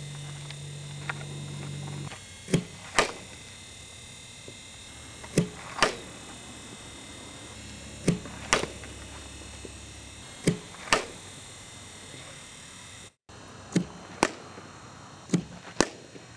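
A softball bat hitting pitched balls during batting practice: sharp cracks in pairs about half a second apart, the pairs repeating every two to three seconds.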